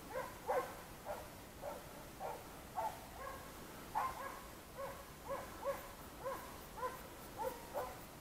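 Hunting hounds baying on the trail of wild boar: a steady run of short barks, about two a second, each falling slightly in pitch.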